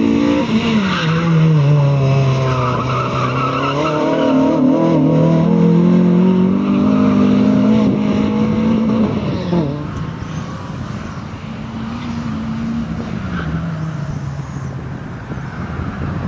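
Renault Clio rally car's engine revving hard through a tight turn, with tyres squealing. About nine and a half seconds in the engine note drops sharply and the car carries on, quieter.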